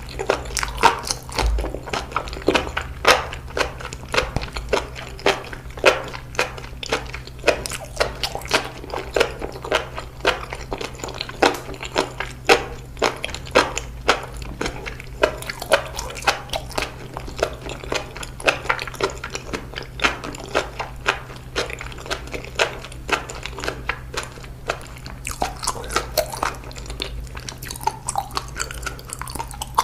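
Close-miked eating of seaweed: crisp biting and chewing crunches, several a second, with no pause, over a steady low hum.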